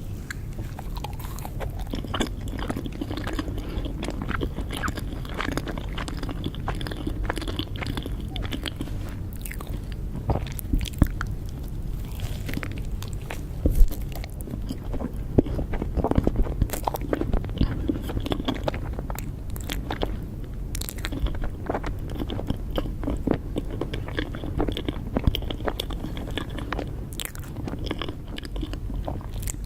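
Close-miked eating of cake: repeated bites and chewing with crisp, crunchy clicks throughout. The loudest bite comes about halfway through.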